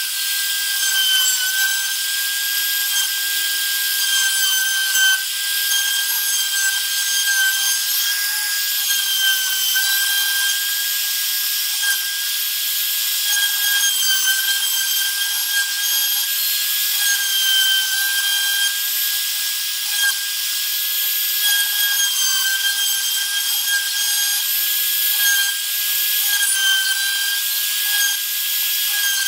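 Spindle of a homemade CNC router running with a steady high whine while its small end mill cuts into a wooden board, engraving letters, with the scrape of the cut wood beneath; the pitch sags slightly now and then.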